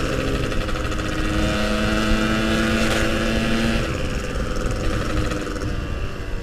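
Yamaha RX-King two-stroke single-cylinder engine running at steady riding revs, then easing off about four seconds in and running quieter.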